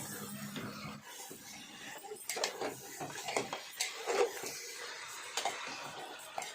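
Metal spoon stirring pork pieces and spices in a cooking pot, with irregular clinks and knocks against the pot. A low hum stops about a second in.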